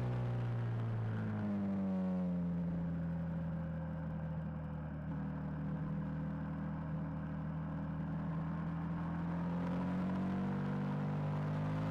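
KTM 990 Super Duke's V-twin engine on a track lap. The engine note falls about a second or two in as the bike slows for a corner, holds a steady lower pitch through the turn, then rises as the throttle opens on the way out near the end.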